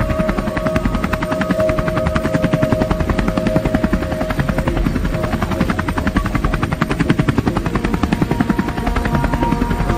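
Helicopter rotor chopping in a rapid, even beat, with sustained music tones underneath.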